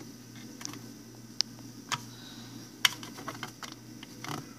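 Scattered light clicks and taps of plastic smoke alarms being handled, a few sharp ones standing out, over a low steady hum.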